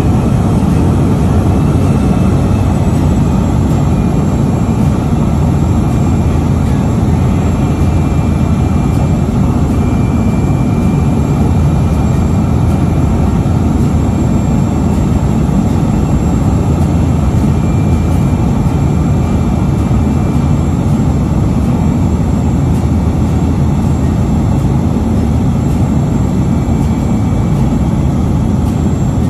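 A floatplane's engine and propeller drone steadily and loudly, heard from inside the cabin.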